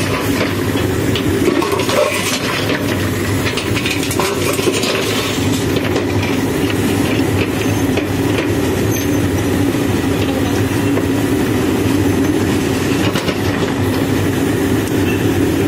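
Diesel engine of a Manitou TLB 845 backhoe loader running steadily under load as the backhoe arm digs and swings, with scattered short clanks and scrapes from the bucket in gravel.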